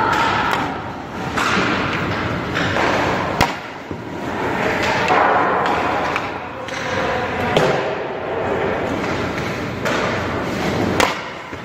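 Hockey pucks cracking off sticks, goalie pads and boards, four sharp hits spread across a few seconds, over the scraping hiss of skate blades on the ice.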